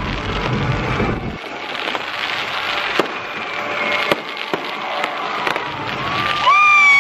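Fireworks crackling and popping overhead, with a few sharp bangs. About six and a half seconds in, the cruise ship's horn starts up, a loud held blast of several notes at once.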